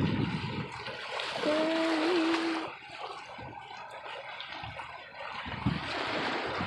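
Water trickling and lapping, with a brief steady low tone about one and a half seconds in that lasts about a second.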